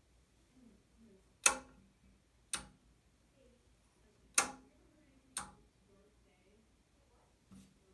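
Four sharp mechanical clicks in two pairs, about a second apart within each pair, with a fainter click near the end.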